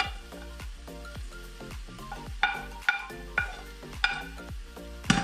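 Wooden spoon knocking and scraping mushrooms off a ceramic plate into a pan of frying ground meat: about six sharp clinks, the loudest near the end, over a steady sizzle. Background music plays underneath.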